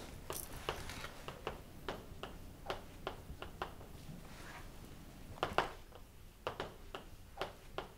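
Sharp clicks from a pen, two or three a second and unevenly spaced, with a louder pair about five and a half seconds in.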